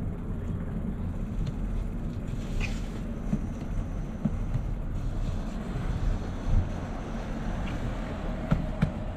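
Steady low rumble of wind and rolling noise on a bicycle ride, with a few light clicks and knocks scattered through it.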